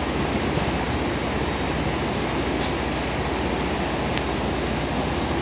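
Steady, even rushing noise of machinery running in a dyno cell, holding the same level throughout with no rise or fall.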